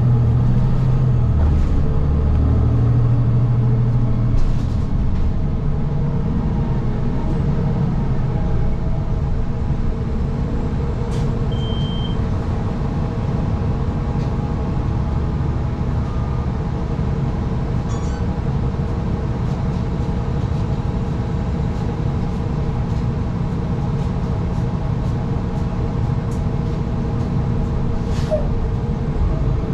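City bus running, heard from on board: a steady rumble of engine and road noise. The engine note is stronger in the first few seconds, then evens out.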